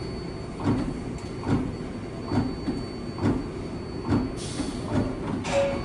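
R188 subway car standing in the station with its doors open: a steady rumble with a soft regular thump a little more than once a second. About four and a half seconds in comes a short burst of air hiss, and just before the end the first tone of the door-closing chime sounds.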